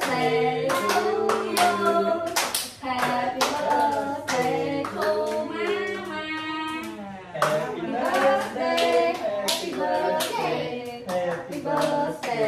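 A group of adults and children singing a birthday song together, with hand claps throughout.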